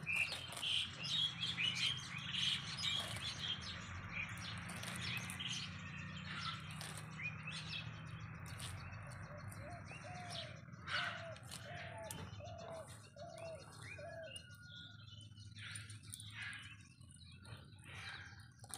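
Small birds chirping and calling, busiest in the first several seconds. Around the middle one bird repeats a short, lower note about eight times, roughly two a second. Scattered soft knife cuts through leafy greens on a bamboo winnowing tray can also be heard.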